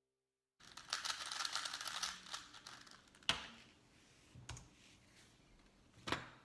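Plastic Rubik's Cube being turned rapidly by hand, a quick run of dense clicking turns, then slower single turns and a few sharper taps.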